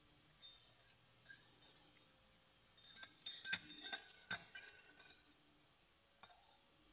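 Metal fork clinking and scraping against a ceramic bowl, gathering the last of the salad: a run of sharp clinks with a short ring, thickest and loudest in the middle seconds.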